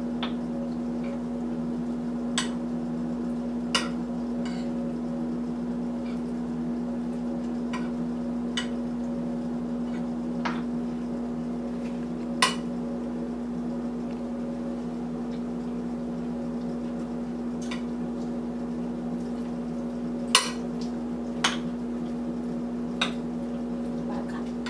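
Metal spoon stirring a lentil salad in a ceramic bowl, clinking against the bowl about eight times at irregular intervals, over a steady low hum.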